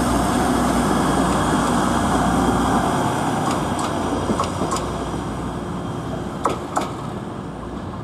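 Hull Trains Class 180 diesel multiple unit running past and pulling away, its diesel engines fading as it recedes over the second half. A few sharp clicks a few seconds in, the two loudest near the end, as the wheels run over the rail joints and pointwork.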